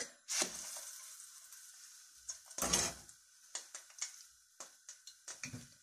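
An egg-battered piece of fish goes into hot vegetable oil and sizzles sharply, the sizzle fading over a couple of seconds. Then comes a knock, and after it a few light clicks of utensils against dishes.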